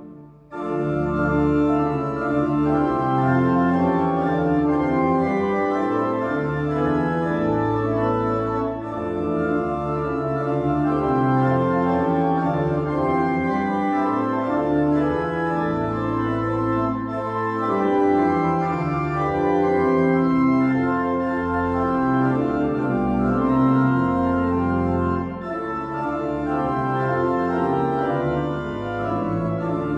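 Organ playing a hymn tune in held chords over a stepping bass line. It breaks off for a moment at the very start and comes back in about half a second later.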